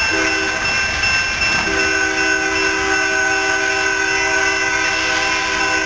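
Amtrak passenger locomotive's multi-note horn blowing as the train approaches. It cuts out briefly about half a second in, then sounds again and is held steadily, over the low rumble of the oncoming train.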